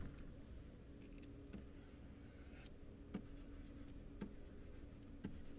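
Faint scratching and light tapping of a stylus writing on a pen tablet, drawing a bracket and then letters.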